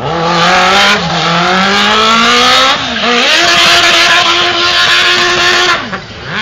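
Z1000-engined homemade quad's inline-four engine revving hard while its rear tyres spin and smoke, pitch climbing with short dips about a second in and near three seconds, then held high before the throttle drops off near six seconds.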